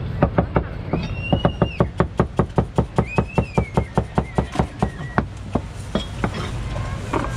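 Kitchen knife chopping on a cutting board in a rapid, even rhythm of about five strokes a second, slowing to a few scattered chops after about five seconds, over a steady low background rumble.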